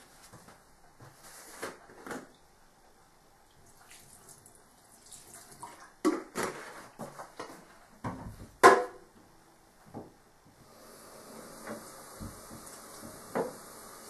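Scattered knocks and clatters of laundry appliances being handled, with one sharp loud knock about nine seconds in. From about eleven seconds a steady hiss sets in and carries on, with a few light taps over it.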